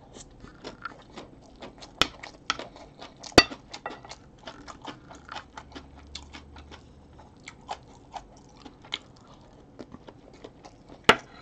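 Close-up chewing of a mouthful of crunchy napa cabbage kimchi and fried rice: a dense, uneven run of small crunching clicks. A few sharper clicks stand out, the loudest about three and a half seconds in.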